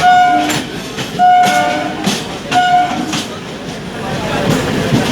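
DEMU train's horn sounding three short blasts in the first three seconds, the second the longest, over the clatter of wheels rolling over rail joints.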